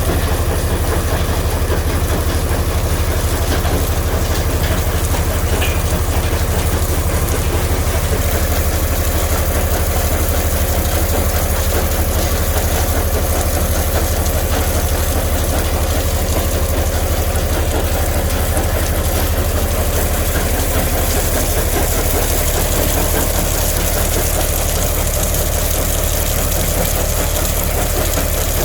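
Heavy rock-crushing plant machinery running steadily: a loud, constant low-pitched hum with a fast pulse under a grinding noise.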